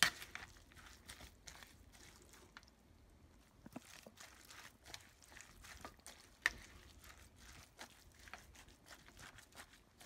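Mango pico de gallo of diced mango, onion and cilantro being stirred in a glass bowl: soft, wet, irregular squishing and rustling, with a few sharper clicks at the start, about three and a half seconds in and about six and a half seconds in.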